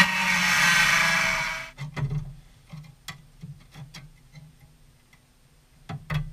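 Angle grinder with a cut-off disc cutting rusted steel, which stops under two seconds in. Then comes a run of light, irregular ticks and taps, with two louder knocks near the end.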